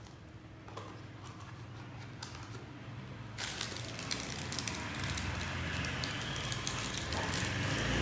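Rustling and rapid small clicks of toys and packaging being handled. Faint at first, growing louder and denser about three seconds in.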